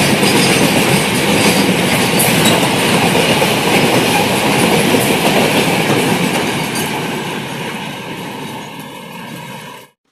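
Double-stack container freight wagons rolling past at speed: a dense rumble and rattle of steel wheels on rail with rapid clicks. It fades over the last few seconds, then cuts off suddenly near the end.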